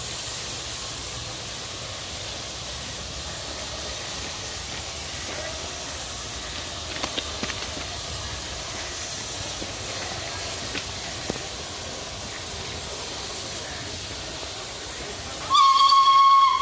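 Steam locomotive B 5112 hissing steadily as it vents steam, with a few faint clicks. Near the end its steam whistle sounds one loud, slightly falling note for about a second.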